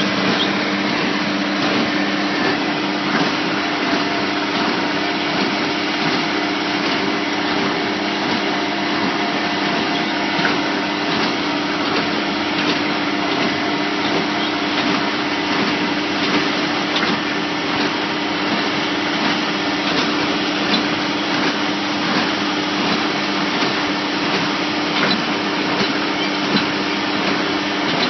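Tractor engine running steadily while towing a working small square baler, with faint knocks from the baler mixed in.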